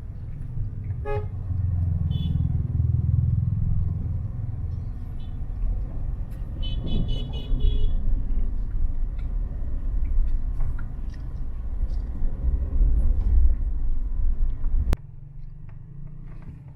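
Motor vehicle running with a steady low rumble, with short horn toots about a second in and again around seven seconds in. The rumble cuts off abruptly near the end.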